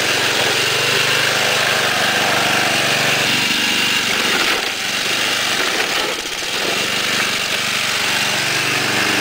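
Modified John Deere Sabre lawn tractor's 11 hp Briggs & Stratton engine running steadily, easing off briefly around the middle.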